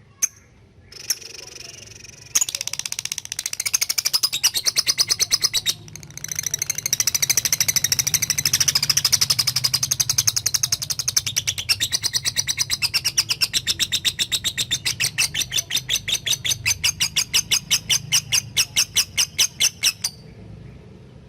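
Lovebird giving a long chattering 'ngekek' call: a rapid run of sharp, high-pitched chirps repeated several times a second, with one short break, slowing slightly near the end before stopping abruptly.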